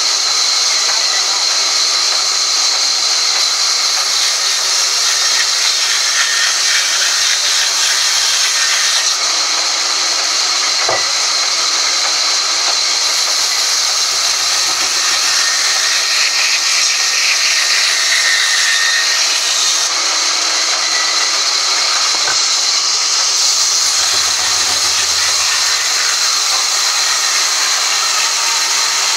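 Sawmill band saw running and cutting lengthwise through a crooked log: a loud, steady hiss with a high whine held over it.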